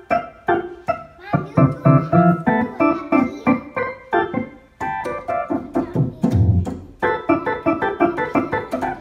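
Two-manual home console organ played by a toddler: irregular jabs of single notes and key clusters, about two or three a second, with a deep low note sounding briefly about two-thirds of the way through.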